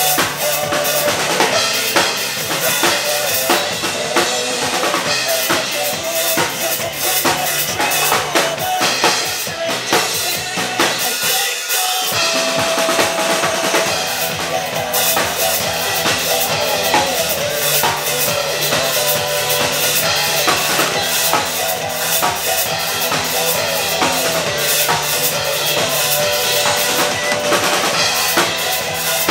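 Acoustic drum kit played live with a steady rock beat of kick, snare and cymbals over a recorded backing track; the bass briefly drops out near the middle.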